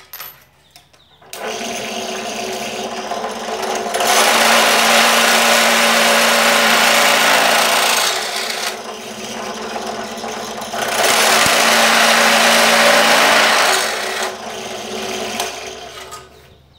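Bench drill press motor starts about a second in and runs steadily, while a larger drill bit is fed into an aluminium bar twice, each cutting pass louder and harsher than the motor alone. The motor stops and winds down near the end.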